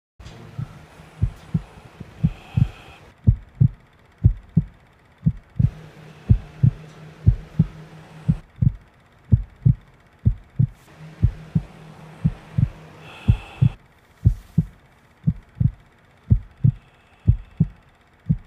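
Heartbeat sound effect: a low double thump about once a second, steady throughout. A low droning tone swells in underneath three times for a few seconds each.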